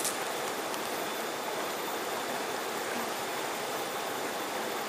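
Steady rush of a fast-flowing river running over rocks.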